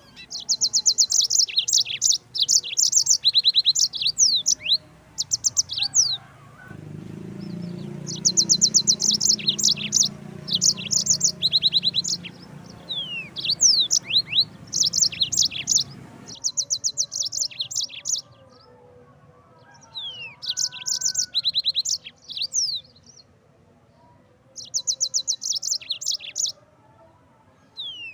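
Yellow-fronted canary (Mozambique canary) singing: high-pitched phrases of fast trilled notes and quick downward whistles, repeated again and again with short pauses between them. A low hum sits underneath for a few seconds in the middle.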